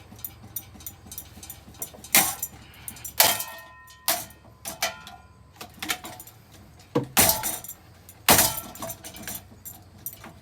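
A running ceiling fan ticking rapidly as it spins, hit hard about six times, each hit a loud clattering crack, some with a brief metallic or glassy ring and breaking.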